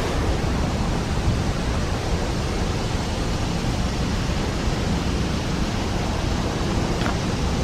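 Steady rushing noise with a rumbling low end: outdoor air or water noise.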